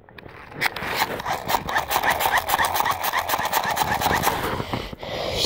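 Duvet fabric rubbing and scratching against the phone's microphone as the phone is moved about under the covers: many quick, irregular rustling scrapes.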